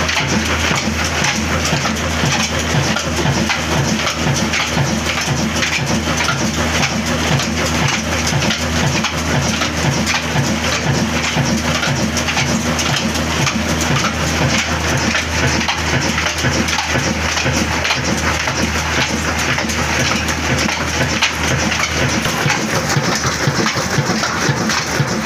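A 26 HP Ittefaq stationary diesel engine running steadily, driving flat belts and pulleys. It makes a dense, rain-like clatter of fast knocks over a low hum.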